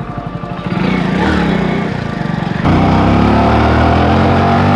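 A small vehicle engine running, picking up about a second in, then revving louder with rising pitch from about two and a half seconds in as the vehicle moves off.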